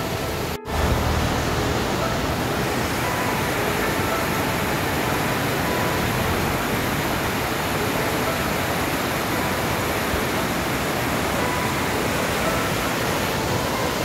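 Mountain river rushing over boulders in small cascades: a steady, loud rush of water that drops out for a moment about half a second in.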